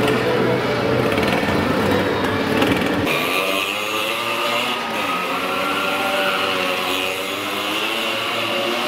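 Several small motorcycle engines revving inside a wooden well-of-death drum, their pitch rising and falling as the bikes circle the wall. About three seconds in, the note shifts higher and wavers more.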